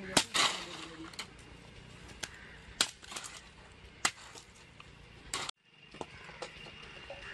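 Sharp, irregular blows of a blade and stalk striking and chopping dry palmyra palm fronds, about seven strikes. About five and a half seconds in the sound cuts off abruptly, leaving a faint steady high tone and a few soft taps.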